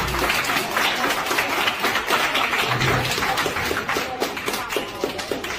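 A small crowd of restaurant diners applauding with dense hand clapping, easing off toward the end.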